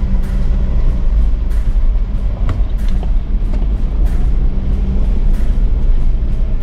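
Four-wheel-drive vehicle's engine running steadily, heard from inside the cab as it drives slowly over a rough dirt track, with irregular knocks and rattles from the bumps.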